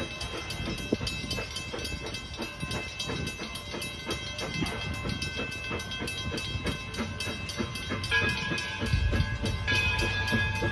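Edison No.1 4-4-0 steam locomotive running with a steady rapid beat of knocks. About eight seconds in its whistle starts, one steady note that grows louder, over a heavier low rumble.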